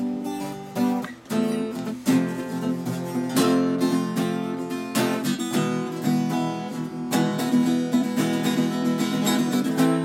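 Two acoustic guitars playing a song together with strummed chords, steady and rhythmic.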